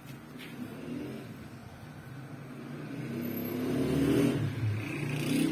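A motor vehicle's engine running and getting louder over the second half, its pitch rising and falling as it revs.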